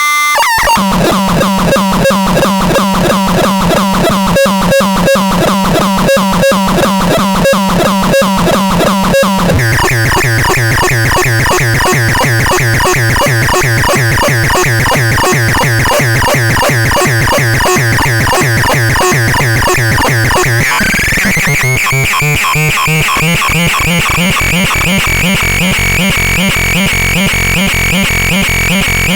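Rubbish Synth 9 synthesizer playing harsh, buzzy electronic tones chopped by a fast stuttering pulse. The pitch drops about ten seconds in, and a rising sweep comes just after twenty seconds.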